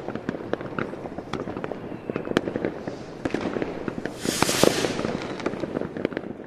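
Firecrackers crackling and popping in quick irregular succession, with a louder hissing burst about four seconds in, fading out near the end.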